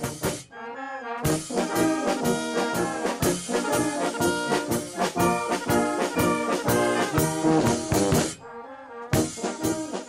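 A brass band playing a tune in a steady rhythm, with trombone-like low brass carrying the notes. It starts about a second in and breaks off shortly before the end.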